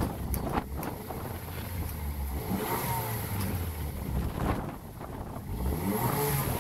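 Chevy Cruze's 1.4-litre turbo four running through a new Flowmaster Force II cat-back exhaust with dual tips, heard at the tailpipes: a low, steady exhaust rumble that rises and dips slightly.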